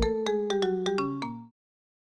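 Closing music: a short run of bright, bell-like notes, about four a second and mostly falling in pitch, that rings out and cuts off suddenly about a second and a half in.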